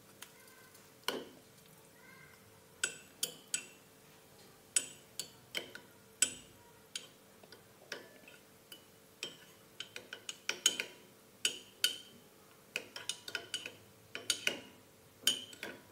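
Metal spoon clinking against the inside of a ceramic mug while stirring margarine melting in a water bath: irregular sharp taps, sparse at first and coming quicker in the second half.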